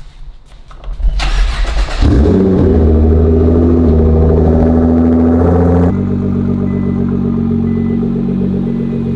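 Nissan GT-R R35's twin-turbo V6 cranked over and started: it catches about two seconds in, flares into a steady fast cold idle, then settles to a lower idle at about six seconds.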